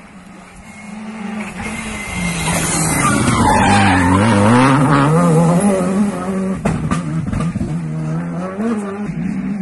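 Rally car running flat out through a corner, its engine note rising and falling quickly through gear changes and throttle lifts. It grows loud and is loudest about four to five seconds in as the car passes, then eases off as it drives away.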